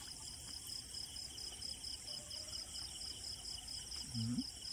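Night insects chirping in an even, rapidly pulsing trill. A brief low human grunt comes about four seconds in.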